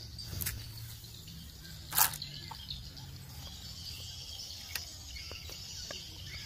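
A few sharp clicks of plastic toy train track pieces being picked up and handled, the loudest about two seconds in, over a steady high buzz of insects in the grass.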